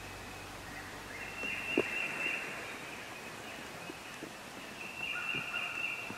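Wild turkeys gobbling at dawn, two long calls about a second in and near the end, over quiet woods. A few faint clicks in between.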